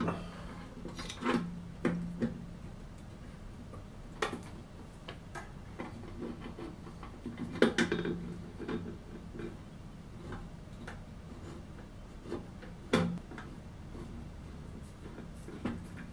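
Screwdriver driving small screws to fasten a resin printer's UV LED array with its aluminium heatsink: scattered metallic clicks and taps, the sharpest a little before halfway and again about three quarters through.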